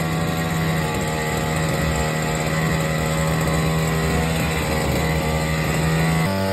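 Backpack brush cutter's small petrol engine running steadily at idle, rather noisy. The engine note changes abruptly near the end.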